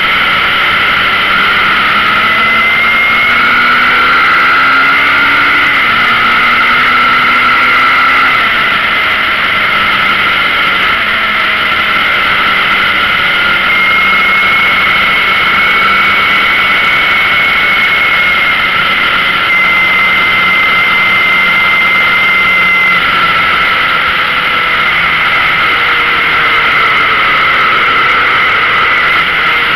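Yamaha XJR motorcycle's inline-four engine running at road speed over a steady rushing noise. The engine note rises for a few seconds, drops sharply twice, about six and eight seconds in, as it shifts up, then holds steady while cruising.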